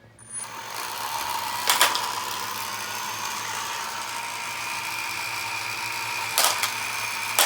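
Spinning weapon of a homemade combat robot spinning up at half power to a steady whirring whine, with sharp knocks about two seconds in and twice near the end.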